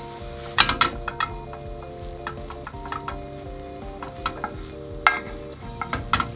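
A slotted spatula tapping and scraping against a rectangular tamagoyaki pan as the rolled omelet is pushed back to the handle end, over a light sizzle of egg frying in oil. The sharpest clicks come a little after the start and again near the end.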